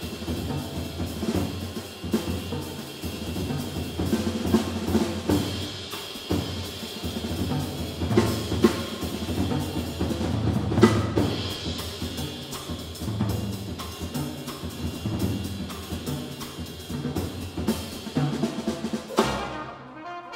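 Jazz drum solo on a Yamaha drum kit: busy snare, tom and bass-drum hits under washing cymbals. The playing breaks off abruptly about a second before the end.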